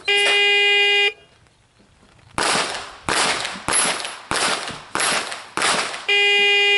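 A steady electronic start tone for about a second, then six pistol shots fired at a steel plate rack, evenly spaced about 0.6 s apart. A second identical tone sounds near the end.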